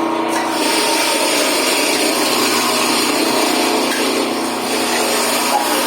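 Electric chili grinding machine running steadily, grinding dry chilies to powder, with a coarse grinding hiss that thickens about half a second in.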